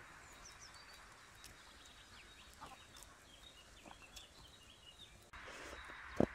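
Quiet garden ambience with small wild birds chirping and twittering in the background, and faint ticks and crunches of hens and a dog eating popcorn off the grass. A single loud, short sound right at the end.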